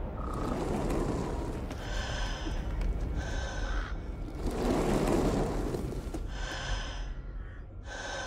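A woman breathing heavily and gasping, her breaths swelling and fading. Four short, harsh, high-pitched sounds break in at intervals of about one to three seconds.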